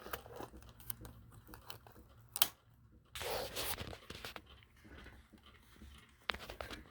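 Handling noise from objects being moved about close to the microphone: scattered small clicks and rustling, with a sharp click about two and a half seconds in and a short rustle just after three seconds.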